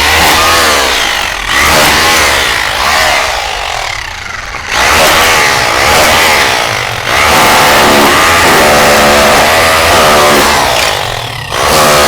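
Stanley SHR263K corded rotary hammer running in chisel mode, a chisel bit hammering ceramic tile off a brick wall. It runs in several loud surges with brief eases between, its motor pitch wavering under load.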